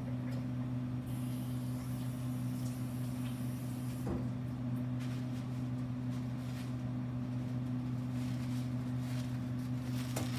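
Steady low electrical machine hum of the room, with a faint knock about four seconds in and another near the end.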